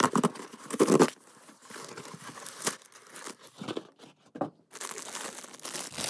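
Cardboard mailer being torn open along its tear strip, in irregular ripping rasps with a few sharp clicks, followed near the end by the crinkling of a clear plastic bag as the contents are pulled out.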